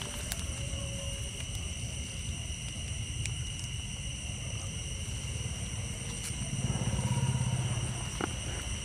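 Low engine rumble of a vehicle passing on the road, growing louder about seven seconds in and then fading, over a steady high-pitched drone.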